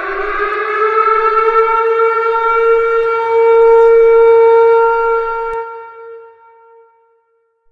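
Civil defense siren sounding one long, steady wail, held at one pitch and then fading away about six seconds in.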